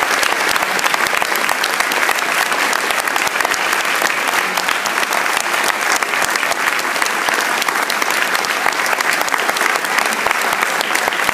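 Large audience applauding: dense, steady clapping that keeps on without a break.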